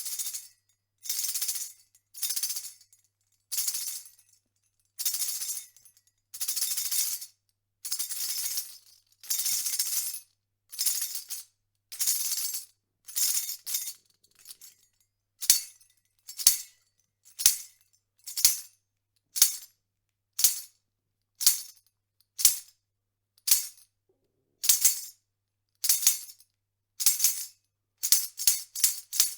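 A tambourine played alone: first shaken in short separate jingling shakes, about one every second and a bit. About halfway it switches to sharp hand strikes about once a second, each with a knock and a brief jingle, and near the end a fast run of strikes, about four a second.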